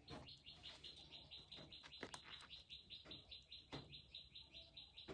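Faint, rapid, evenly repeated high chirping, about five chirps a second, with a few light clicks and taps from kitchen tongs handling crisp toast.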